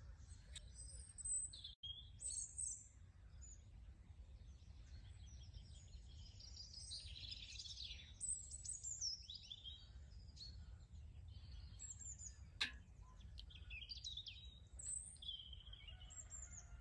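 Small birds chirping and twittering in the background, with a low steady hum beneath. A single sharp click comes a little past the middle.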